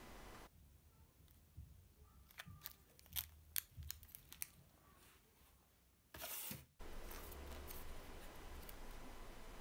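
Faint handling noise: a scattering of light clicks and plastic crinkles as a plastic wall-charger and its cord in a small plastic bag are turned over in the hands, then a short scuffing burst about six seconds in.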